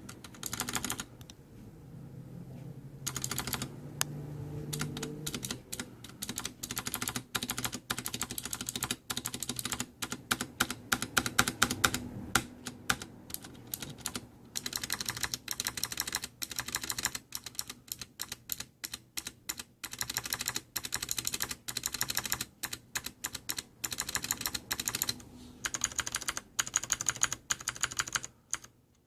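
Ducky Zero mechanical keyboard with Cherry MX Blue switches, its keys pressed in quick, uneven runs of sharp clicks with brief pauses.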